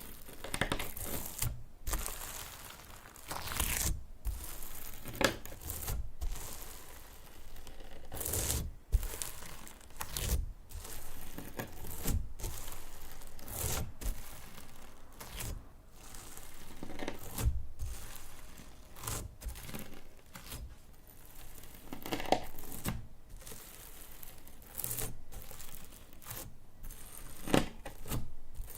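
Slime being worked by hand: irregular sticky squishing, crackling and popping as it is stretched and pressed, with sharp little snaps now and then.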